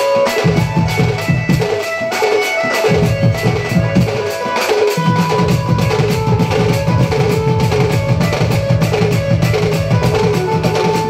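A Sambalpuri baja folk band playing: fast, driving strokes on dhol barrel drums and other drums, with a reed-pipe melody above them. The deep drum strokes drop out briefly twice in the first few seconds, then carry on steadily.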